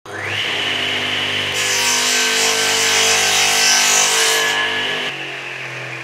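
Electric power tool spinning up and cutting into wood. A harsh high hiss sits over the motor's steady whine from about a second and a half in until about four and a half seconds in. After about five seconds the sound drops lower and quieter.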